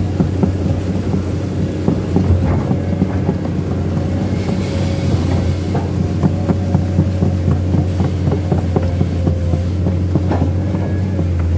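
Komatsu PC210 excavator's six-cylinder diesel engine running steadily at constant speed as the machine travels on its tracks, with frequent short knocks and clanks over it.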